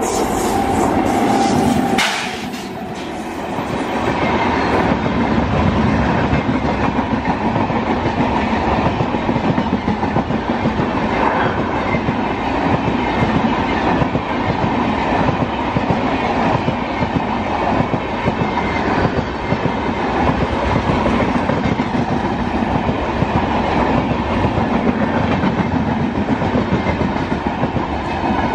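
Electric-hauled passenger train passing close by at speed, its coaches' wheels clattering steadily over the rail joints with a loud, continuous rumble.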